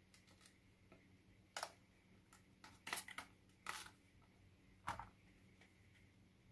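Leek stalks being peeled apart into their leaf layers by hand: a few short, sharp crackles and clicks with quiet between.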